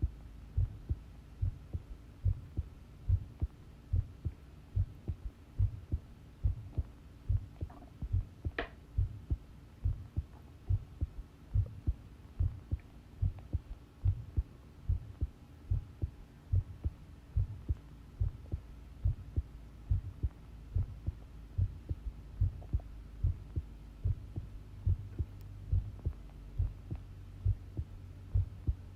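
A person's heartbeat recorded close up: a steady, regular run of low lub-dub beats over a faint steady hum. There is one brief click about eight and a half seconds in.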